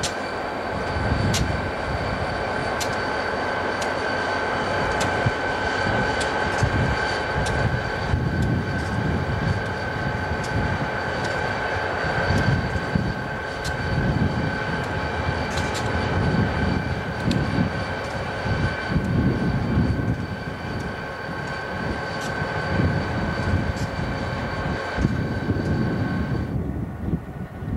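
CP Rail diesel-electric locomotives idling, a steady low engine rumble with a high steady whine that stops shortly before the end.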